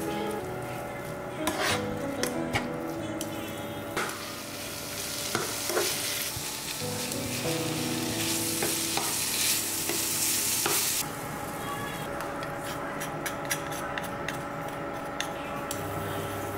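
Minced meat frying with diced onion and carrot in a nonstick pan, sizzling while a metal slotted spatula stirs and breaks it up, with sharp clicks and scrapes of the spatula against the pan. The sizzle is loudest in the middle and drops off about eleven seconds in.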